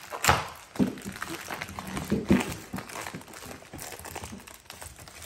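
Cardboard toy box being torn open by hand: a run of crackling rips and rustles of cardboard and packaging, loudest near the start.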